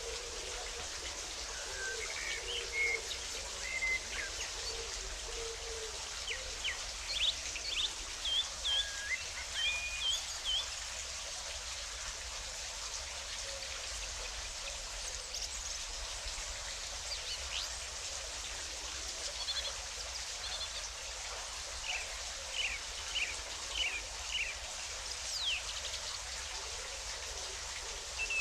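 Steady rush of water with small birds chirping over it: short, high chirps come in two spells, the first a few seconds in and the second in the last third.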